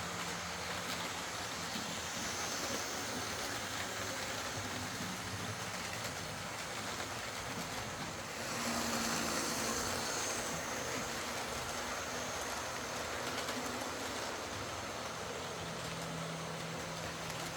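Lima Class 55 Deltic OO gauge model locomotive running on track, its DC motor and gears giving a steady hum over the rattle of wheels on rail, freshly serviced with a cleaned and filed gear. It gets a little louder for about two seconds a little under halfway through.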